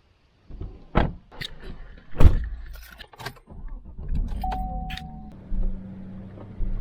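Several knocks and thumps of doors and gear at a parked truck, a short steady beep about four and a half seconds in, then the truck's engine running with a steady low hum.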